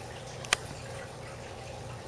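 Steady trickle and low hum of an aquarium's running water circulation, with one sharp click about half a second in.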